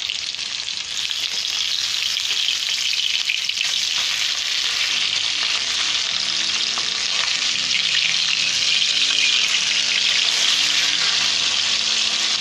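Pabda fish sizzling as they shallow-fry in hot mustard oil, the hiss growing a little louder in the first couple of seconds. A metal spatula scrapes and taps against the aluminium kadai as the pieces are turned.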